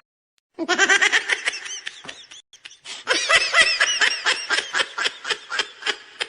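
A laughing sound effect: one voice in a fast, rhythmic burst of laughter, about four laugh pulses a second. It starts about half a second in, dips briefly partway through, then picks up again and trails off near the end.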